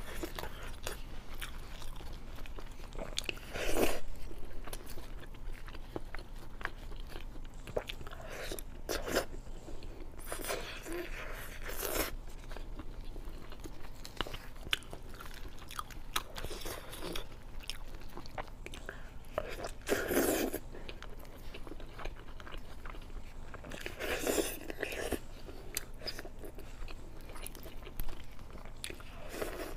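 A person eating roast chicken close to the microphone: steady chewing with small wet clicks, broken every few seconds by louder bites and crunches.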